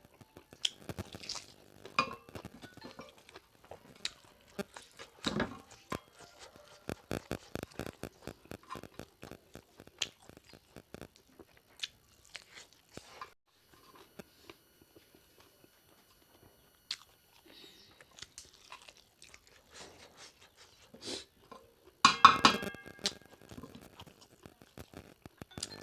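Close-up eating sounds of pork leg curry: irregular chewing, smacking and crunching, with a quick run of chewing strokes about seven seconds in and a louder burst of noise near the end.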